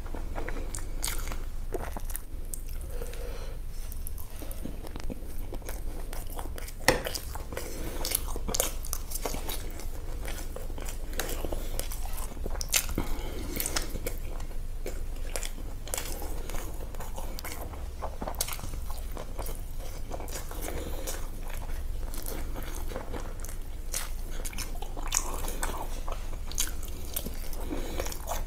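A person eating close to the microphone: chewing and biting food, with many sharp crunchy clicks and one louder crack about seven seconds in, over a low steady hum.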